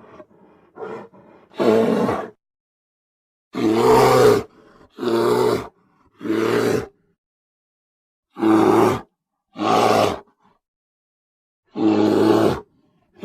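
Made-up dinosaur roars pieced together from bear, lion and cartoon-creature sounds: about seven short, loud roars, each under a second long, with silence between them.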